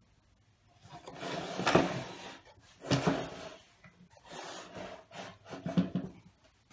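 Plywood sharpening-jig boxes being slid, turned and set down on a plastic workbench top. It comes as four bursts of wood scraping and knocking, with the sharpest knocks near the start and near the end.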